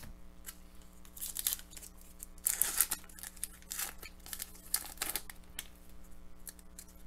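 Foil trading-card pack wrapper crinkling as it is handled and torn open. It comes as a series of short rustles and tears, the loudest about two and a half seconds in.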